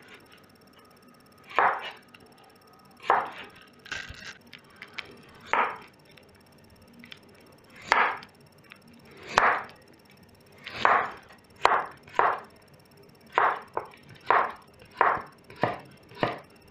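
Samura chef's knife cutting carrot into thin julienne strips on a wooden cutting board: separate knocks of the blade through the carrot onto the board. They come about a second or more apart at first and closer together, nearly two a second, toward the end.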